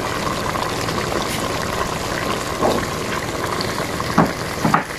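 Chicken juices boiling hard in a cooking pot on high heat, with a steady bubbling hiss, as the liquid is cooked off.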